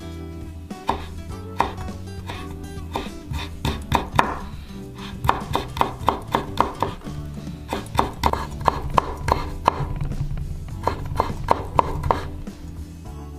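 Chef's knife chopping citrus peel into thin strips on a bamboo cutting board: runs of quick knife taps on the wood, about four a second, over steady background music.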